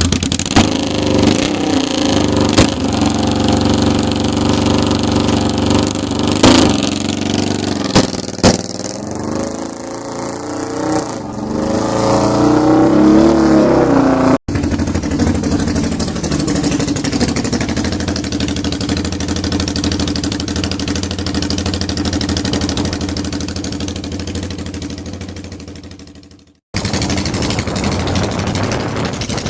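1979 Yamaha XS750 inline-three engine running and being revved, with several sharp cracks in the first few seconds and a rising rev a little before the middle. It then runs steadily, fades and breaks off, and starts again near the end.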